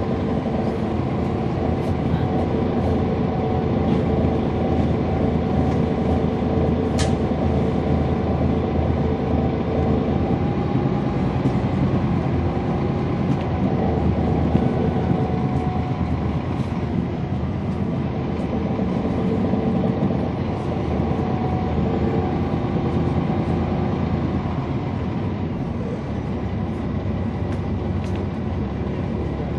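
Cummins ISL9 8.9-litre inline-six diesel engine of a NABI 40-SFW transit bus running steadily as the bus is under way, with small rises and falls in level.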